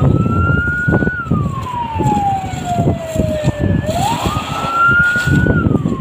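An emergency vehicle's siren wailing: it climbs quickly, holds high, then slides slowly down, twice, over a heavy low rumble with scattered knocks.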